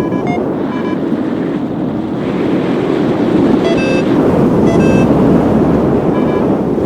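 Strong wind rushing over the microphone, growing louder about three seconds in, with a few short beeps sounding now and then through it.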